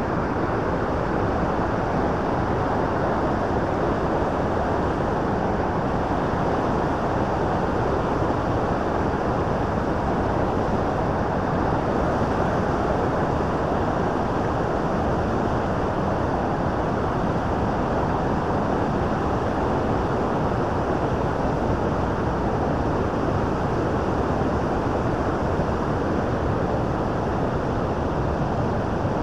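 Rapids and waterfall on the Bow River rushing steadily: an even, unbroken wash of water noise at a constant level.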